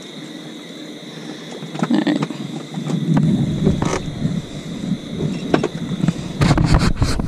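Scattered knocks and rattles of gear being handled on a small fishing boat, over a steady faint hum. A low rumble comes in about three seconds in, and the knocks come thick and fast near the end.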